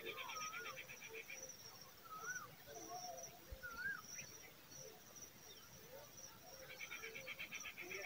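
Wild birds singing around the nest: a rapid high trill at the start and again near the end, short rising-and-falling whistles every second or two, and a steady run of thin high chirps.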